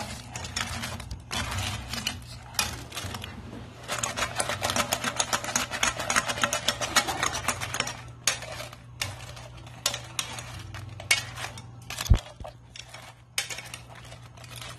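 A utensil scrapes and clicks rapidly against a nonstick frying pan as sauce-coated fried chicken wings are stirred and tossed. The clatter is densest about four to eight seconds in. A single low thump comes about twelve seconds in, over a steady low hum.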